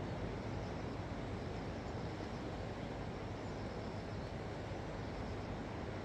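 Sea surf washing steadily: an even, deep rush with no single wave standing out.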